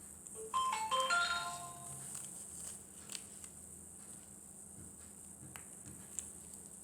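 A short chime-like jingle: a quick run of a few bright notes, about half a second in, ringing for about a second and fading. A few faint clicks follow over a steady high hiss.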